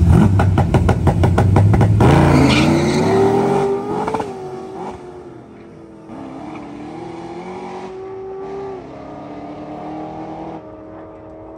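A drag-race pickup truck and a car launching side by side down a drag strip: about two seconds of loud, choppy high-revving at the line, then the engine note climbs in pitch as they pull away. The pitch drops and climbs again a few times with the gear shifts while the sound fades with distance down the track.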